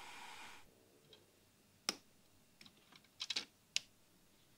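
Heat gun blowing a steady hiss that cuts off abruptly under a second in. Then a few sharp clicks and taps of the wires and metal socket being handled: one about two seconds in, a quick cluster just after three seconds, and one more shortly after.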